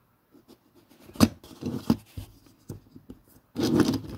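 Close handling noise of a small die-cast toy car turned over in the hands: rubbing and scraping with a few sharp clicks, the loudest click a bit over a second in and a louder rustle near the end.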